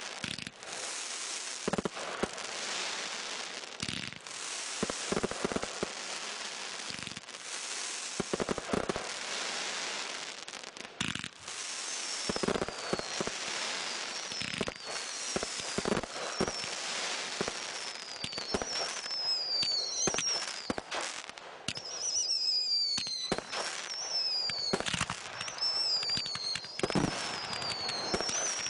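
Fireworks going off. For the first half there is a dense crackle with scattered sharp bangs. From about halfway, shrill whistles follow one another about once a second, each sliding down in pitch, among more bangs.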